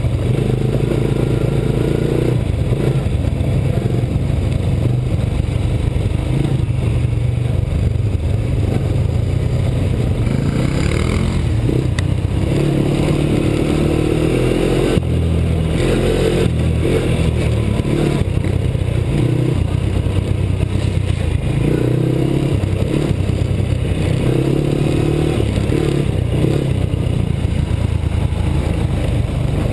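Honda TRX90 youth ATV's small single-cylinder four-stroke engine running under way on a dirt trail, its speed rising and falling with the throttle.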